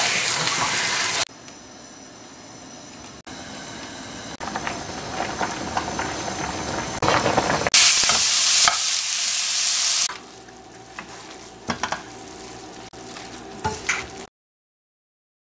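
Kitchen cooking sounds cut together. It opens with a loud hiss of tap water running over mallow leaves being rubbed in a colander, then moves to vegetables and noodles sizzling as they are stir-fried in a pan, with the spatula scraping and clicking. The sound cuts off about a second before the end.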